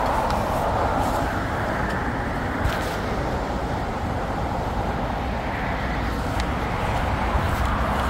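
Steady rush of traffic on a busy main road, cars passing continuously, with a few faint clicks over it.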